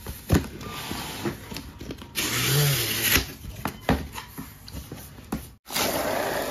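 Cardboard packaging and plastic-wrapped panels being handled and shifted: scraping and rustling with a few sharp knocks, and two longer hissing rushes, the first about two seconds in and the second near the end.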